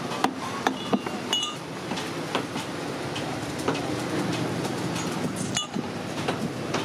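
Small steel nails and a hammer clinking while an old tyre is nailed into a tub: a few sharp metallic clinks, some with a brief ring, in the first second and a half, then scattered lighter taps over a steady background noise.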